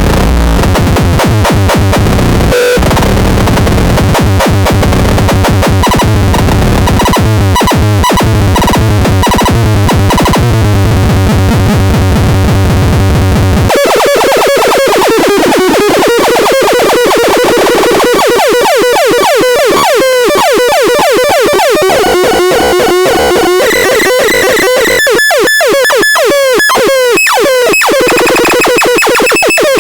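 Harsh, loud electronic synthesizer noise. At first it is dense and distorted with a heavy low end; about fourteen seconds in it changes to thinner, warbling tones that glide in pitch and stutter rapidly.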